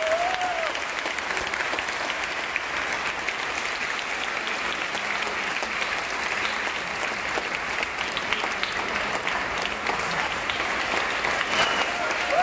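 A large audience applauding, the clapping dense and steady throughout.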